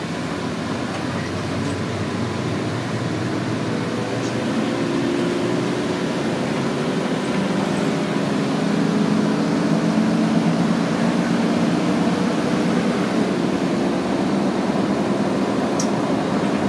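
Cabin noise inside a moving van: a steady rumble of engine and road noise that grows gradually louder, with a faint engine hum through the middle.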